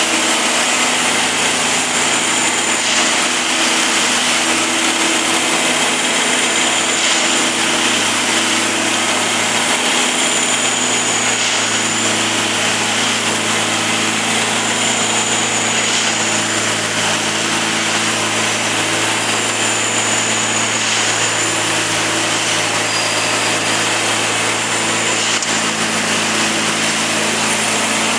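Plasser 09-32 CSM track tamping machine working: its engine and hydraulics run steadily under a high whine that dips and returns about every four and a half seconds, in step with the repeating tamping cycle.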